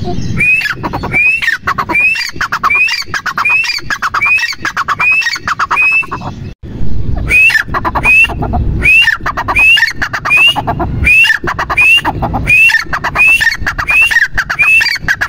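Grey francolin (teetar), a female, calling: a long run of loud notes repeated about twice a second, each rising at its end. A brief break about six and a half seconds in, then the calling resumes.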